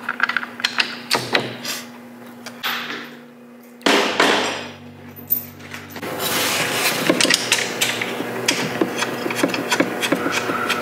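Hand tools knocking and clicking against metal car suspension parts: scattered knocks at first, then a fast run of clicks from about six seconds in.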